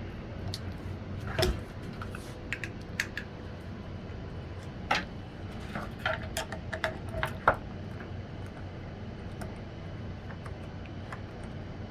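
Scattered clicks and knocks of hard plastic feeder parts being handled and taken apart, with a quick run of clicks in the middle.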